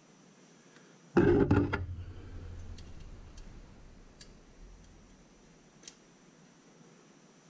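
A sudden loud clatter of rapid knocks about a second in, dying away over the next few seconds, followed by a few faint, widely spaced light clicks as a Heli-coil is threaded by hand into a timing-cover bolt hole.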